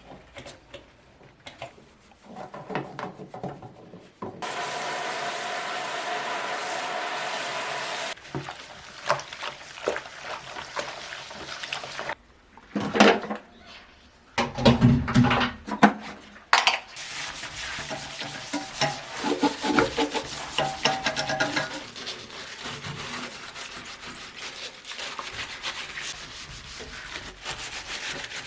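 Scrubbing and rubbing of bathroom surfaces during cleaning. A steady rush of noise lasts about four seconds early in the stretch, a few loud knocks and clatters come around the middle, and dense, continuous scrubbing strokes follow.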